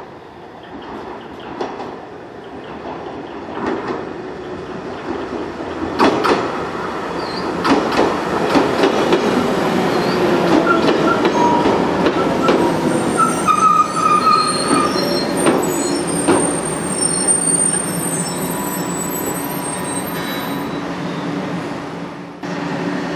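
JR Shikoku 8000 series limited express electric train pulling into the platform, growing louder over the first several seconds, its wheels clacking over rail joints and its brakes squealing in thin high tones as it slows. The sound changes abruptly near the end.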